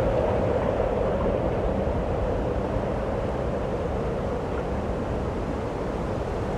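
Steady snowstorm wind blowing: a continuous rushing noise with a deep rumble underneath.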